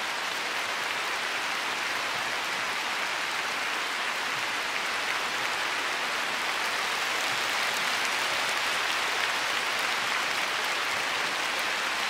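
Large arena crowd applauding steadily at the end of a figure skating program, a sustained even clapping that swells slightly about eight seconds in.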